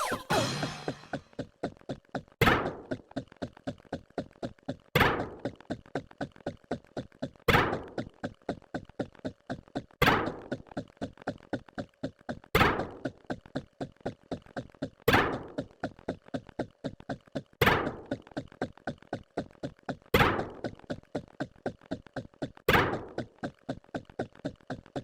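A rapid, even run of short thunks, about five a second, with a louder hit that rings on briefly about every two and a half seconds, in a regular repeating pattern.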